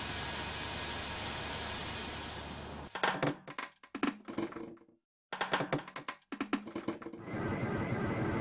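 Machinery sound effects for an animated factory: a steady hiss for about three seconds, then a fast run of sharp mechanical clicks and clacks broken by a brief dead stop, then a steady machine hum from about seven seconds in.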